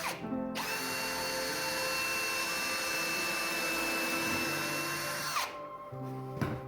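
A handheld power tool running steadily with a high whine for about five seconds, then winding down, after a brief blip at the start.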